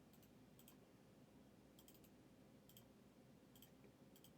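Near silence with faint, sharp clicks every second or so, some single and some in quick pairs.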